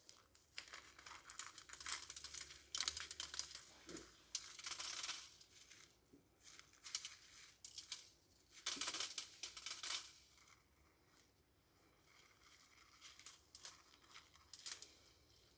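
Faint, irregular scraping and rustling as sticky frosting is worked over a gingerbread roof. It stops about ten seconds in, and a few faint scrapes follow near the end.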